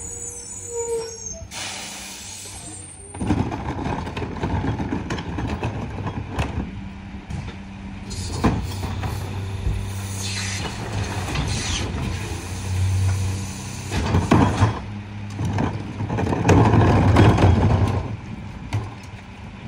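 Mack MRU rear-loader garbage truck running at idle. Its engine speeds up louder a couple of times, and there are sharp metallic knocks and clanks.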